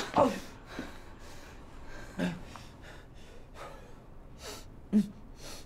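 A person breathing unevenly, with a few short gasps: one at the start, one about two seconds in and one near the end.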